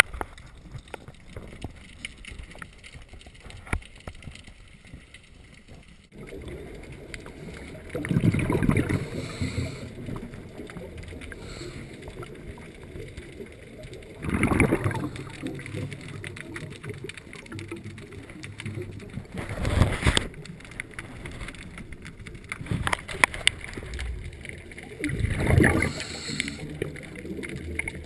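A scuba diver's regulator exhaling: four bursts of bubbling, one every five to six seconds, with a steady low water noise between them.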